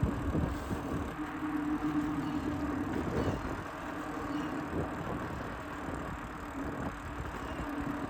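Electric mountain bike being ridden: a steady hum that fades in and out over a low rumble of tyres and wind buffeting a chest-mounted microphone.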